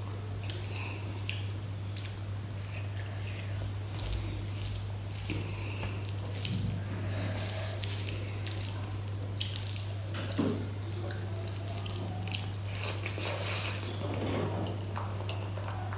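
Wet squelching and dripping clicks from fingers mixing rice into runny kadi on a steel plate, with a mouthful taken near the end, over a steady low hum.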